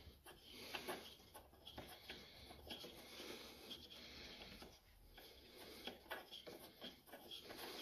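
Very faint small clicks and scrapes of a spark plug being turned out by hand from a lawnmower engine, barely above room tone.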